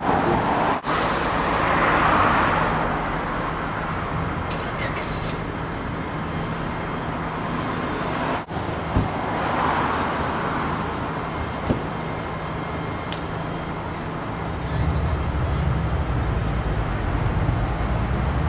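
Road traffic: cars passing by, two of them swelling up and fading away, over a steady hum of traffic. A heavier low engine rumble comes in near the end.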